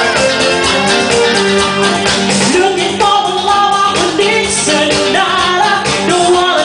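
Live band playing a rock-pop song with electric guitar and a steady beat, women singing lead into microphones; the voice comes in more clearly about halfway through.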